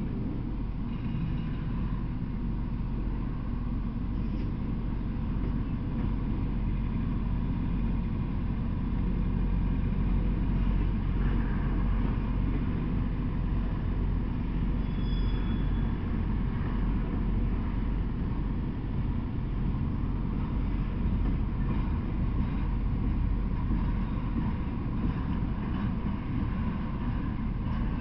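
Intermodal freight train of semi-trailers on flatcars rolling past at a steady speed: a continuous low rumble of the wheels on the rails.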